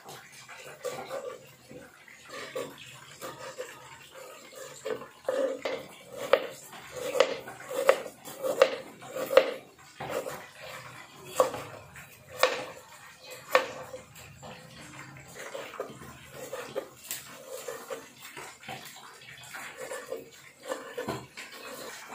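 Kitchen knife chopping vegetables on a plastic cutting board: a run of knocks about once or twice a second, loudest in the middle.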